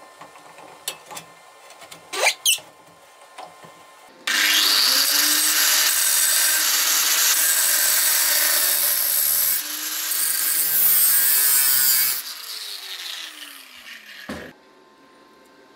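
Angle grinder cutting into a steel shovel blade clamped in a vise: it starts abruptly about four seconds in, runs steadily with a brief easing midway, then is switched off and winds down with a falling whine. A few knocks come before it starts and a single clunk near the end.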